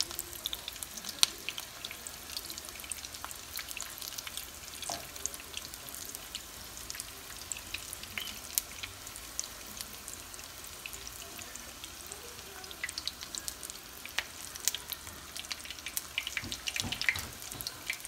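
Egg-battered cauliflower florets deep-frying in hot oil in a skillet: a steady sizzle with frequent sharp crackles and pops as the pieces are turned with tongs.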